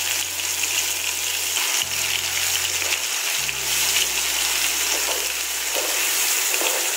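Onion, garlic, ginger and green chilli paste frying in hot oil in a kadai, a steady sizzle as it is stirred with a wooden spatula.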